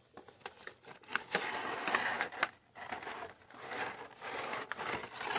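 A cardboard action-figure box and its clear plastic blister tray being handled and slid apart: rustling and scraping of card and plastic in two longer stretches, with a few sharp clicks.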